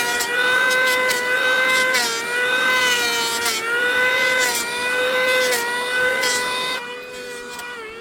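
High-pitched electric power tool motor running, its pitch sagging slightly and recovering several times as it takes load, with scattered short clicks; it drops in level about seven seconds in.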